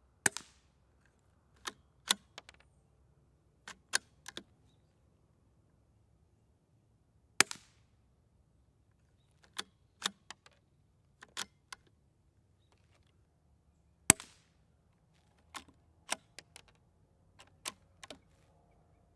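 Ruger Precision Rimfire bolt-action rifle with an AB Suppressors MELB-P integrally suppressed barrel firing three suppressed shots about seven seconds apart. Between the shots come clusters of quieter clicks from the bolt being lifted, drawn back and pushed home.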